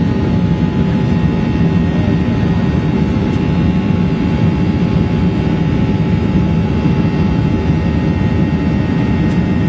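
Steady cabin noise of a Boeing 737-800 in flight after takeoff, heard from inside the cabin: a constant engine and airflow roar with a thin steady whine above it.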